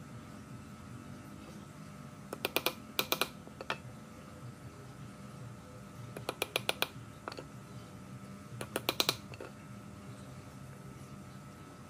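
Three short bursts of rapid sharp clicking: about two seconds in, about six seconds in and near nine seconds, over a faint steady low hum.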